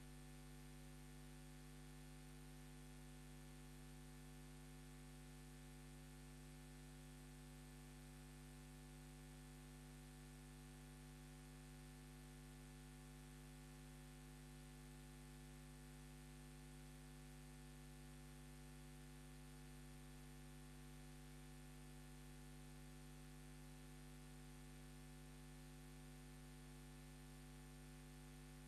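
Near silence: a faint, steady hum with low hiss.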